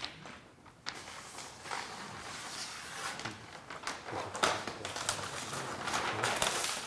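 Paper backing being peeled off a sheet of adhesive vinyl wrap and handled, a run of rustling and crinkling with a few sharper crackles, starting with a click about a second in.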